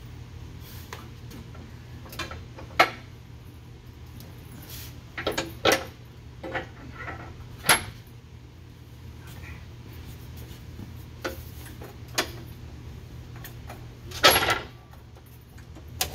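Metal tools and parts clinking and knocking now and then, about a dozen sharp clinks with a longer, louder clatter near the end, over a steady low hum.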